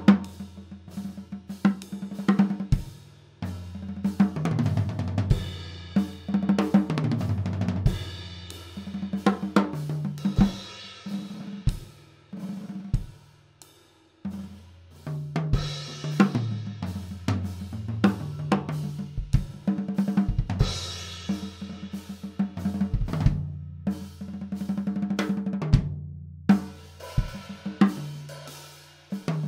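Natal Originals walnut drum kit played through grooves and fills, with snare, bass drum, hi-hat and crash cymbals, and fills that run down the toms. The drums are unprocessed, on stock heads with no EQ or compression. There is a brief pause about 14 seconds in.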